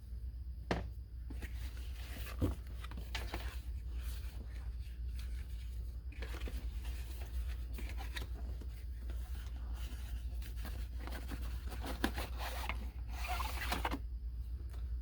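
Packaging being unwrapped by hand: irregular rustling, crinkling and tearing of wrap and box, with scattered sharp clicks and snaps.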